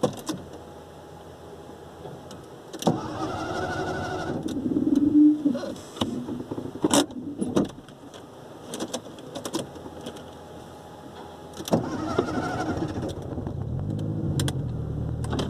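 Volkswagen Gol G3 being started: the starter cranks with a whine about three seconds in, stops, and cranks again near twelve seconds, with small clicks of the key between. Near the end the engine catches and settles into a steady low idle.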